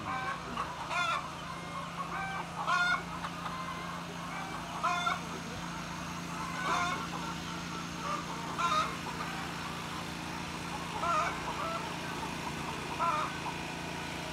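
Brown laying hens in a poultry shed clucking, one short call every second or two, over a steady low hum.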